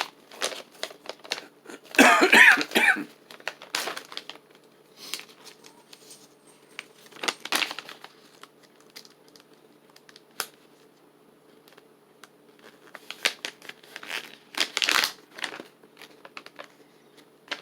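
Jerky package handled and crinkled as it is opened, in scattered crackling bursts and clicks, with the loudest burst about two seconds in.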